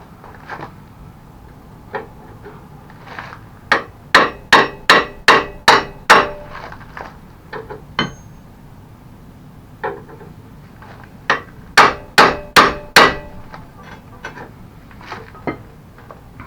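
Hammer blows on metal, driving out a stuck hinge pin on a mobility scooter. A quick run of about eight ringing strikes comes first, then a few lighter taps, then a second run of about five strikes.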